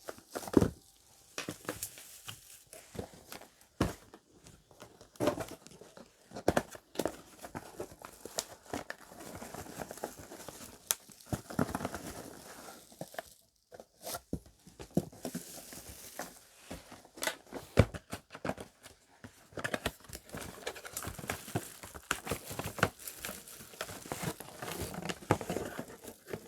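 Speaker boxes being unpacked by hand: packaging crinkling and tearing, with scattered knocks and clicks as parts are handled.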